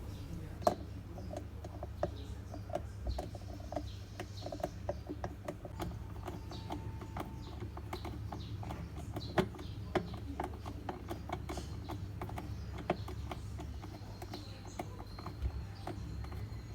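Phillips screwdriver turning and tightening the screw that fixes a washing machine's new pulsator to its shaft: a string of small irregular clicks and scrapes over a steady low hum.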